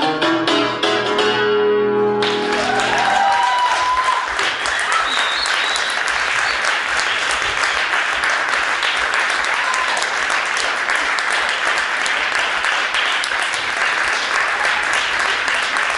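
Concert cimbalom struck with hammers, its last notes ringing out. About two seconds in, audience applause breaks out and carries on steadily as the notes die away.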